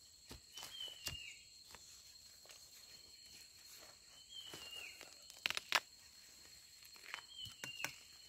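A long digging pole jabbed into soil and dry leaf litter at the base of a bamboo stem to dig out a bamboo shoot: a few scattered sharp knocks and crunches, the loudest two about halfway through and another pair near the end. Under them a steady high drone, and a short falling chirp that repeats every three seconds or so.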